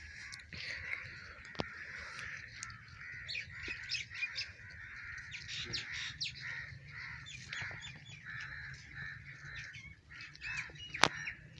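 Birds chirping and calling in a busy chorus, with crows cawing among them. A loud sharp click comes near the end.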